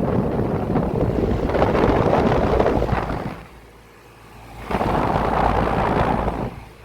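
Air buffeting the phone's microphone in two long rushes, with a lull about three and a half seconds in and an abrupt return about a second later.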